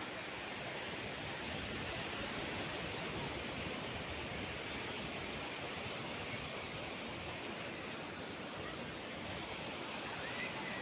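Steady rush of sea surf washing onto the beach, with a faint high whistle near the end.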